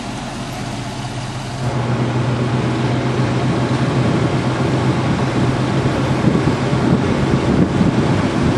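A vehicle engine running with a steady low hum under a rushing noise, which gets louder about two seconds in.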